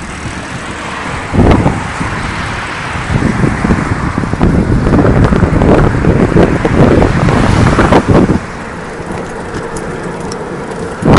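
Wind buffeting the microphone of a camera riding along on a moving recumbent bike, in loud gusts. It eases off a little after about eight seconds.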